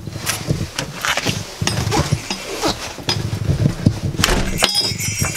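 A key scraping and turning in a front-door deadbolt lock, with repeated metallic clicks. Near the end comes a ringing metallic jingle of keys.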